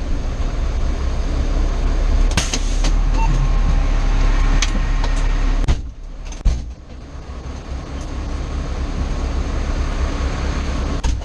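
Fire engine's diesel engine running in the cab as the truck rolls slowly over gravel, with a few sharp clicks and knocks. About six seconds in the engine noise drops and a single knock is heard as the truck stops, then it settles to a steadier, quieter idle.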